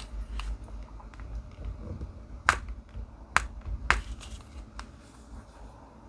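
Diamond-painting pen tapping round resin drills onto the canvas: a scatter of small clicks, three sharper ones about halfway through, over a low room hum.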